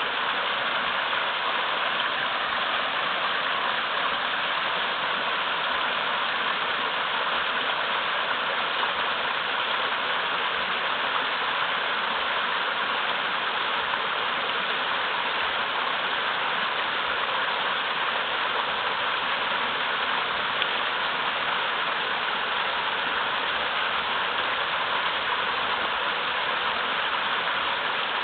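Mini waterfall in a mountain river, water rushing hard over large rocks in a steady, unbroken splashing rush.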